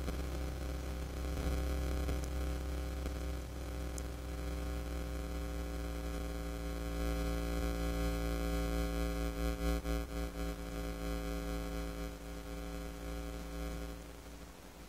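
Steady electrical hum and static with a low drone, from the camera's own recording, which drops away near the end. It is a fault the uploader puts down to the camera getting wet.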